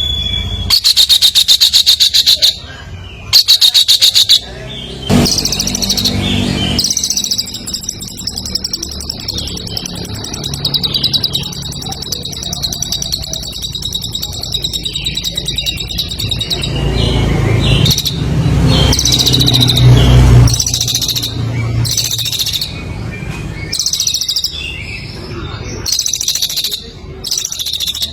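Competition songbird singing loud, fast trills and chattering phrases, including one long unbroken trill lasting about ten seconds from around seven seconds in. A low hum runs underneath.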